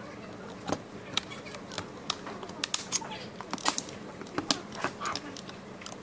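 Irregular plastic clicks and knocks from hands handling and working apart the plastic housing of an ILIFE H70 Max cordless stick vacuum.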